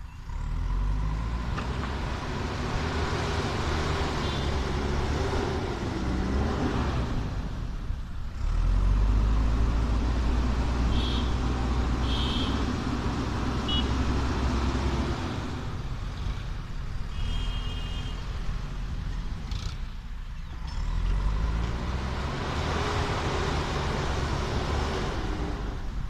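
JCB backhoe loader's diesel engine running hard and revving up and down as the front bucket pushes sand. The engine eases off briefly twice, then picks up again. A few short high tones are heard near the middle.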